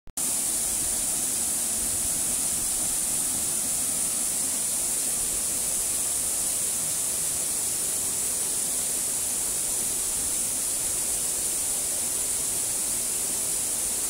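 Waterfall running: a steady, unbroken rush of falling water with a strong hiss.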